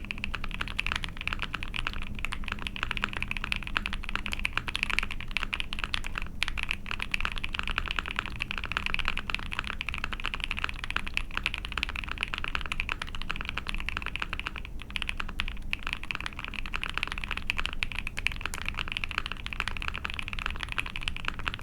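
Continuous fast typing on a custom mechanical keyboard: an ai03 Vega with a POM plate, GMK keycaps and lubed Milkis Frankenswitch linear switches (Zaku bottom housing, unwiped cow stem, Tecsee diamond top). The keystrokes run in a dense stream with a couple of brief pauses.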